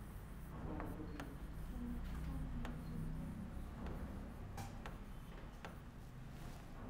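Stylus pen tapping and sliding on the glass of an interactive touchscreen board while writing, as a few faint, irregular clicks.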